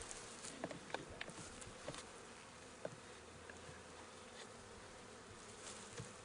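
Honey bees buzzing in a steady hum around an opened Langstroth hive, with a few short, light clicks and knocks in the first three seconds.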